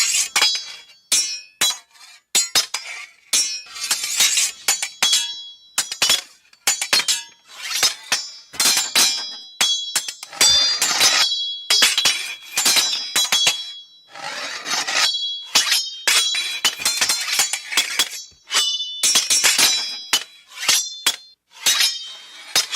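Swords clashing in a fight: metal blades striking again and again, each hit sharp with a high ringing. The hits come in quick irregular flurries of several a second, with brief pauses between exchanges.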